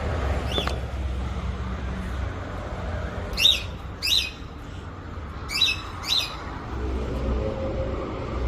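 A bird giving short, sharp calls: one, then two pairs about half a second apart, over a low steady rumble.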